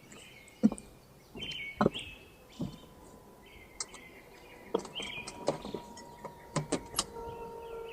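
A songbird repeating short chirping phrases every second or two, over scattered clicks and knocks from equipment being handled. A faint steady tone comes in about a second in, and a lower one joins near the end.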